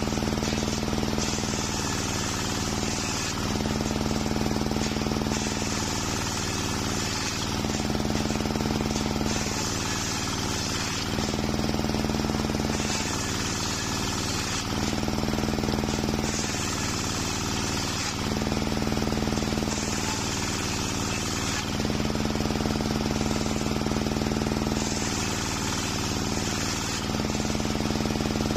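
A homemade table circular saw is ripping waru wood into thin slats. The blade runs with a steady hum, and a rush of cutting noise rises each time a piece is fed through, about one pass every two seconds.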